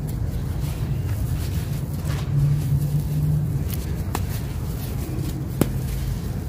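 Hands crushing dry, grainy sand-cement chunks, with crunching and crumbs pouring back onto loose powder, and two sharp cracks as a chunk breaks, about four seconds in and again near the end (the second is the loudest). A steady low rumble runs underneath, with a hum in the middle.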